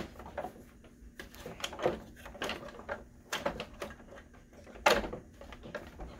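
Hard plastic parts of a 1984 Kenner Imperial Shuttle toy clicking and knocking against each other as the fuselage pieces are pressed and fitted together. It is a series of irregular light clicks, the loudest about five seconds in.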